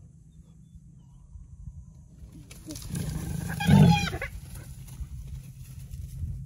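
Lion's loud snarling growl at spotted hyenas, swelling about two and a half seconds in, peaking near four seconds and dying away within about two seconds.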